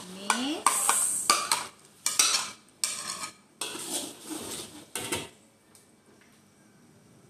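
A metal ladle scraping blended shallot, onion and garlic paste off a plate into a metal wok of hot oil, with a short sizzle, then a metal spatula scraping and clattering against the wok as the paste is stirred. The clatter stops a little after five seconds.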